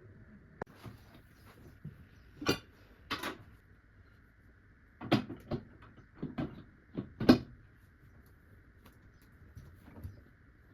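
A series of short knocks and clatters, with the loudest cluster a little past the middle, like household items being handled and set down. A faint steady hum sits underneath.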